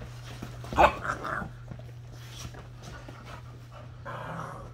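A dog panting, with one short loud sound about a second in.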